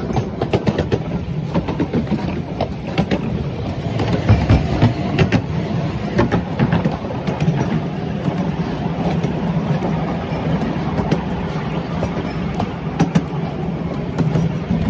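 Train running fast: a steady, loud rumble with the repeated clacking of wheels over the rails.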